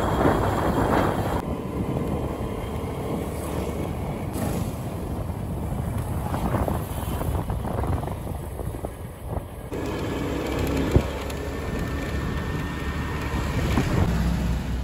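Wind buffeting the microphone over a running engine, the noise changing abruptly a few times, with one sharp click near the middle.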